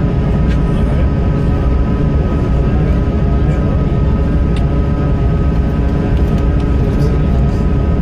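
Steady cabin noise inside an Airbus A220-300: the rumble of its Pratt & Whitney PW1500G geared turbofans and airflow, with a constant whine of several steady tones over it.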